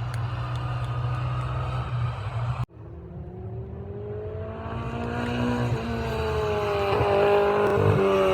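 Classic racing car engines at a hill climb. A steady engine note breaks off abruptly about two and a half seconds in. After it, another car's engine is heard approaching under acceleration, its pitch rising as it gets steadily louder.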